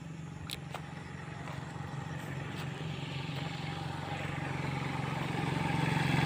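Small motorcycle engine running on the road, approaching and growing steadily louder.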